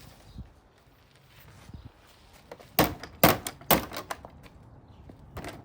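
Three hard blows about half a second apart, starting about three seconds in, strike the plastic body of a Trifo robot vacuum as it is being smashed. Fainter knocks come before them and one more comes near the end.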